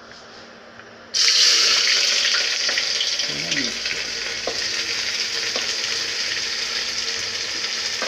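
Sliced onions dropped into hot oil in a pressure cooker, sizzling: a loud hiss starts suddenly about a second in as they hit the oil, then slowly eases off as frying goes on.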